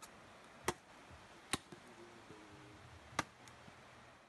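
Machete chopping at a wooden stake: four sharp, separate blows, irregularly spaced about a second or more apart, the last right at the end.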